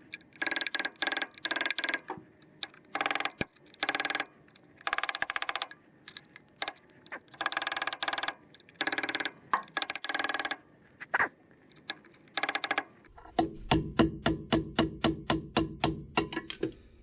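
Ratchet wrench clicking in short, irregular strokes. Near the end comes a louder, steady run of rapid knocks, about five a second, which then stops.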